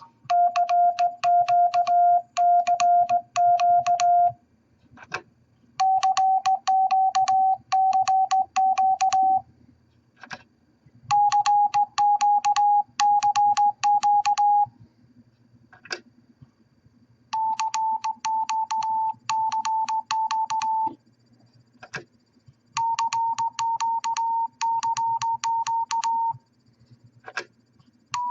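Morse code practice oscillator beeping as Morse is keyed, in five runs of dits and dahs separated by short pauses. The tone starts around 700 hertz and is stepped higher for each run, to a little over 900 hertz. A short click falls in most of the gaps, and a faint low hum lies underneath.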